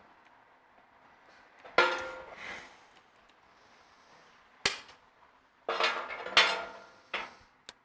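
Steel clanking on steel: a strike about two seconds in, another near five seconds, a cluster a second later and two short knocks near the end, each ringing briefly. The sound comes from the parts of a steel bumper kit being handled.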